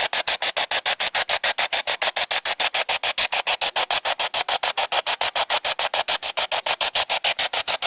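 Ghost-hunting spirit box rapidly sweeping through radio stations: a steady, fast chopping of static, about eight bursts a second.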